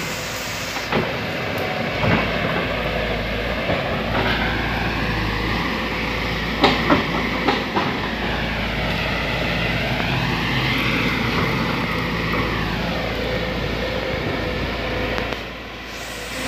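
A Sumitomo hydraulic excavator's diesel engine runs steadily under working load. A whine rises and falls as the boom and arm move, and a few sharp cracks and knocks come from the brush being worked. The engine sound dips briefly near the end.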